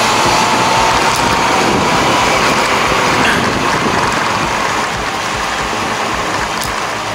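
Wind and road noise rushing over a mounted camera's microphone while riding a Honda CB400 Super Four motorcycle, easing off a little near the end.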